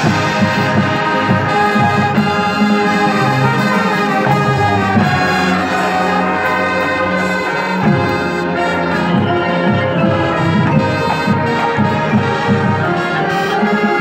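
Marching band playing: the brass section holds full chords over drums and percussion.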